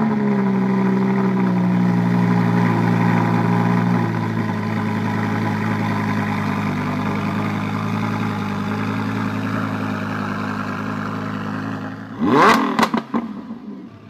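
Lamborghini Huracán's V10 engine just after start-up, holding a high idle that settles a little lower about four seconds in. Near the end it is revved twice in quick blips of the throttle.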